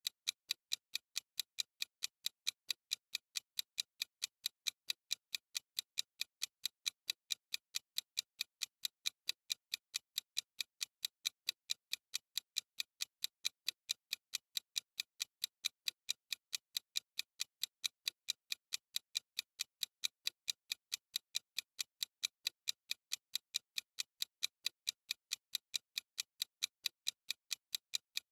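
Ticking clock sound effect of a countdown timer: crisp, evenly spaced clock ticks, several a second, at a steady level.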